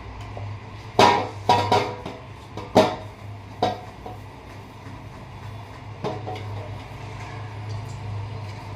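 Kitchen knocks and clatters while jowar bhakri is being made. A cluster of sharp knocks comes in the first four seconds and one more about six seconds in, over a steady low hum.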